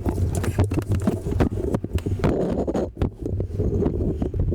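Irregular clicks, knocks and scrapes of a plastic clip being pried and worked loose under a vehicle, over a steady low hum.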